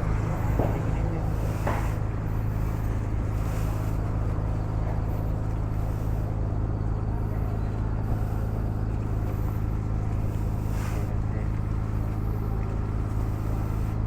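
Honda X-ADV 750's parallel-twin engine running at a steady cruising speed, with wind and road noise on the onboard camera.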